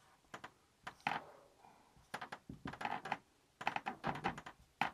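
Felt-tip marker drawing on a board: a run of short, irregular taps and scratchy strokes as small marks are drawn.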